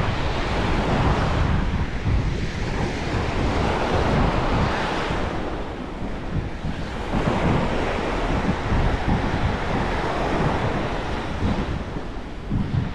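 Small waves breaking and washing up a sandy shore, their noise swelling and easing, with wind buffeting the microphone.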